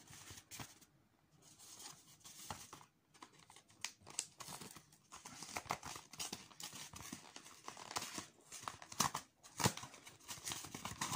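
Cardboard mailer envelope being pulled and torn open by hand: irregular tearing and crinkling of paper, loudest near the end.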